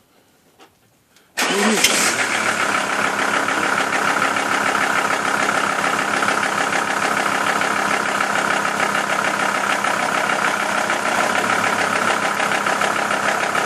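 Volvo V70 car engine starting about a second and a half in, then running steadily at idle.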